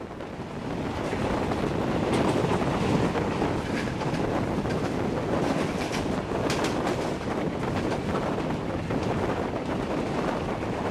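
Wind buffeting a microphone held out of the window of a moving passenger train, over the running noise of the coaches on the rails. The noise swells over the first second or two, then holds steady, with a few faint clicks.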